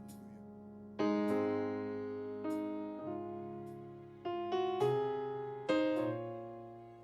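Electric keyboard playing slow, sustained chords in a gospel ballad, each chord struck and left to fade, with a new chord about a second in and several more changes after.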